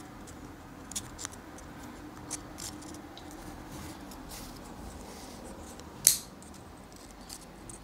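Light clicks and taps of wooden puzzle pieces being handled and fitted together, a few scattered small ones and one sharper click about six seconds in.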